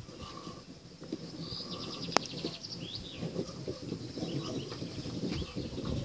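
Small birds chirping, with a quick trill about two seconds in, over low scuffling and rustling close by. A single sharp click sounds about two seconds in.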